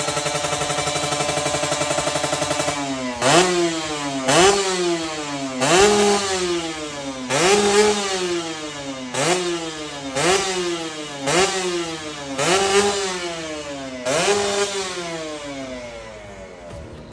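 Kawasaki Ninja 150RR's two-stroke single-cylinder engine running steadily through its exhaust, then blipped about nine times, each rev rising sharply and falling back, the blips fading toward the end.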